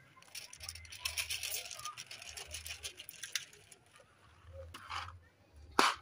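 A kitten lapping water from a shallow bowl, a rapid run of small wet clicks that stops after about three and a half seconds. Near the end come a brief rustle and one sharp click.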